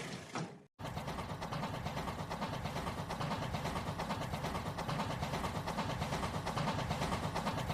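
Rail King battery-powered toy train running on its plastic track: a steady motor whir with a fast, even rattle of the wheels, starting after a short dead gap just under a second in.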